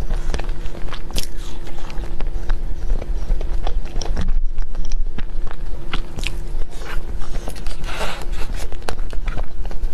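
Close-miked biting and chewing of mille crepe cake: many soft, irregular wet mouth clicks and smacks, over a steady low hum.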